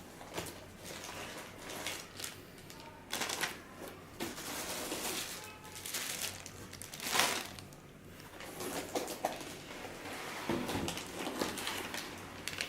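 Packaging of a car stereo head unit being handled and unwrapped: irregular rustling, crinkling and scraping, with the loudest rustle about seven seconds in.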